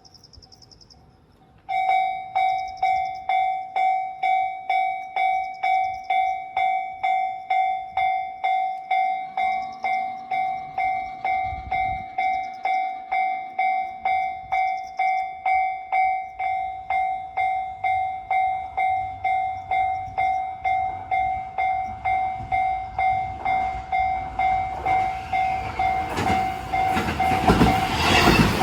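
Japanese level-crossing warning bell starts up about two seconds in, a steady electronic 'kan-kan' ding repeating about twice a second. In the last few seconds the rumble and wheel clatter of an approaching train rise over it.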